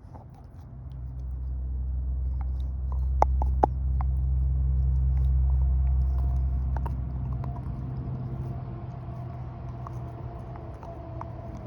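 A low engine rumble swells and then slowly fades, like a vehicle passing close by. A few sharp clicks or crunches come over it, the loudest two close together about three and a half seconds in.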